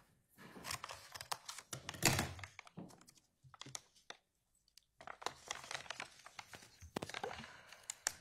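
An evidence envelope being opened and handled: rustling and crinkling of the packaging with several thunks, pausing briefly about four seconds in.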